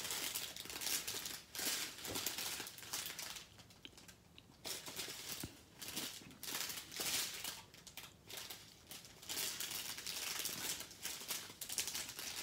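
Strips of small zip-top plastic bags holding diamond painting drills crinkling as they are handled, in uneven bursts.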